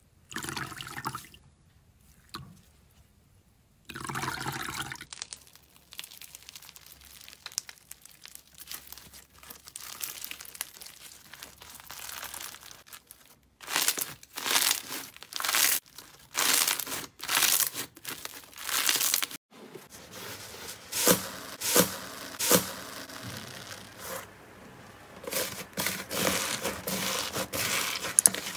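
Hands squeezing, stretching and poking slime: a series of sticky squishing and popping bursts, with short pauses between the runs.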